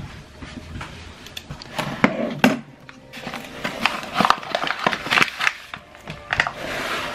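Irregular knocks and clinks of kitchen containers and utensils being handled on a counter, with a paper flour bag rustling as it is turned and lifted in the second half.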